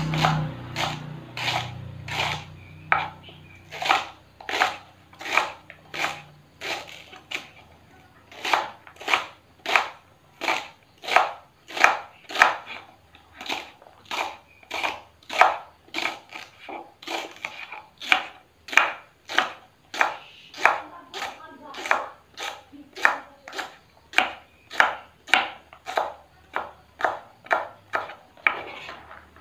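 Kitchen knife chopping taro leaf stalks on a wooden cutting board: steady sharp chops about two a second, with a few brief pauses.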